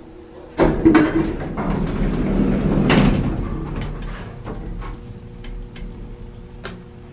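Vintage Otis traction elevator machinery. About half a second in comes a sudden clunk and rumble with sharp clicks that lasts a couple of seconds, then a steady hum with scattered clicks.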